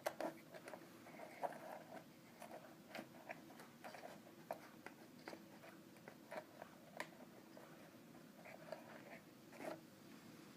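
Faint, irregular clicks and small taps of small parts being handled and set in place on a work surface.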